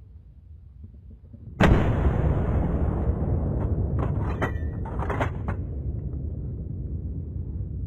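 A hunting rifle shot: a sudden loud bang about a second and a half in, followed by a long low rumble that slowly fades. A few sharper cracks come about two to four seconds later.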